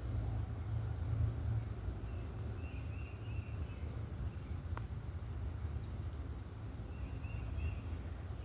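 Outdoor ambience: a steady low rumble with birds chirping now and then, and a quick run of high chirps in the middle.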